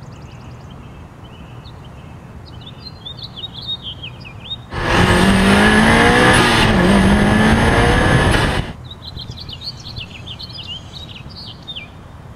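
Birds chirping, cut in the middle by about four seconds of a sports car's engine revving hard under acceleration on an autocross run, heard close from a hood-mounted camera. Its pitch climbs, dips briefly, then climbs again, and it starts and stops abruptly.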